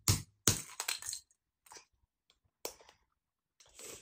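A small plastic toy egg capsule being prised and squeezed open by hand: several sharp plastic clicks and cracks, most in the first second, then a few scattered ones.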